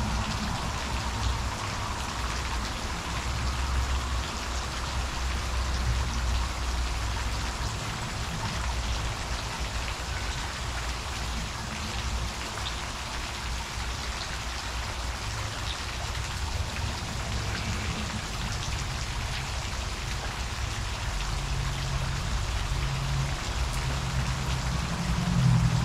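Heavy-nap paint roller rolling water-thinned paint onto a textured stucco wall: a steady, even noise with no break, over a low hum.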